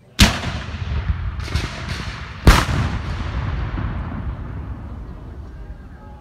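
Two Civil War-style field cannons fire, one shot about two seconds after the other. Each blast is followed by a long rolling rumble that slowly dies away.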